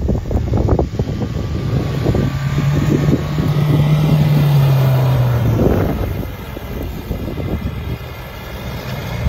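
Mahindra Thar's engine revving hard as the SUV is driven across loose ploughed soil. The engine note is held high for a few seconds, then eases off about six seconds in.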